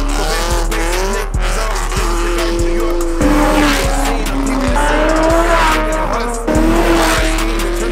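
Performance cars revving hard and squealing their tires as they pull away, engine pitch rising and falling, over a hip-hop track with a heavy bass beat.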